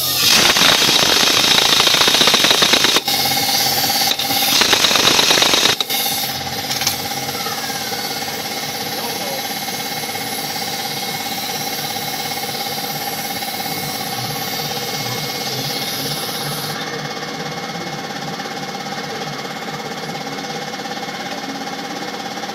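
Compressed air from a blow gun hissing into the empty steering-knuckle pivot-pin bore in two blasts, the first about three seconds long and the second about a second and a half. After the blasts a motor keeps running steadily with a constant hum and whine.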